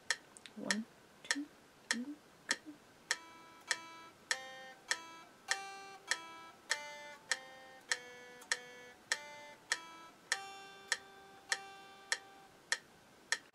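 Steady metronome-like clicks about every 0.6 s, with single notes picked slowly on a Squier Stratocaster electric guitar in time with them from about three seconds in: a beginner's single-note practice line from a method book.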